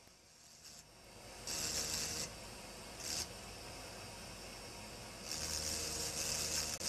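Hand-held engraving drill with a fine burr grinding into optical crystal glass in short passes: a gritty hiss each time the burr touches the glass, twice briefly, then for about a second and a half near the end.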